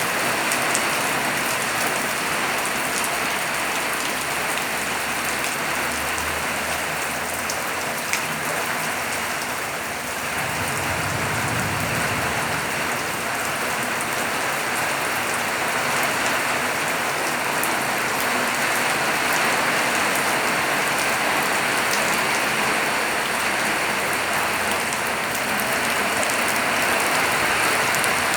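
Rain falling steadily, with a single sharp click about eight seconds in.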